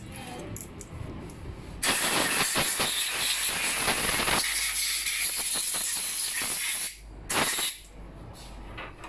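Compressed-air blow gun blasting into a motorcycle cylinder head: a long hiss of about five seconds that starts about two seconds in, then a short second burst near the end.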